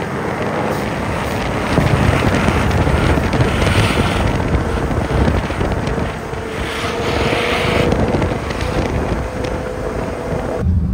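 Nissan R35 GT-R's twin-turbo V6 running under hard throttle as the car slides up a snow-covered slope, its engine note climbing slowly, with wind noise on the microphone.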